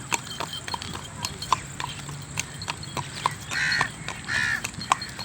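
Hoofbeats of a white mare walking, a steady clip-clop of about three sharp clicks a second. Two short rushing bursts stand out about three and a half and four and a half seconds in.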